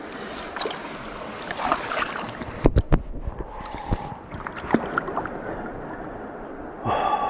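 River water rushing steadily, with a few sharp knocks and a cluster of deep thumps about three seconds in.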